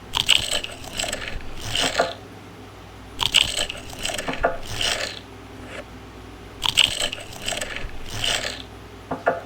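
A child coughing over and over, short coughs in pairs about every second and a half.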